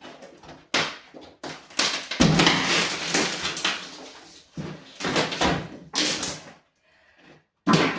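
Old wooden floorboards being pried up and handled: a run of sharp knocks and wooden clatters, with a longer stretch of scraping about two seconds in, a brief pause, and another knock near the end.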